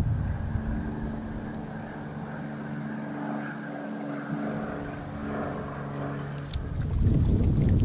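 A steady engine drone holding one pitch, heard while the wind on the microphone drops; gusts of wind buffeting the microphone come back near the end.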